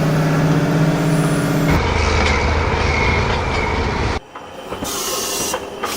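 A run of short industrial machinery sound effects cut one after another: a steady humming machine, then about two seconds in a heavier machine with a low rumble and a high whine, then a quieter, noisier stretch of hiss.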